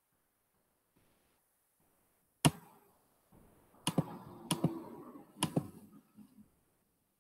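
A few sharp clicks or taps: one about two and a half seconds in, then three more over the next three seconds, with faint rustling between them.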